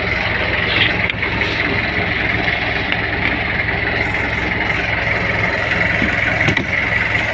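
A fishing boat's engine running steadily: a low drone with a steady higher whine over it, with a few light knocks from handling on deck.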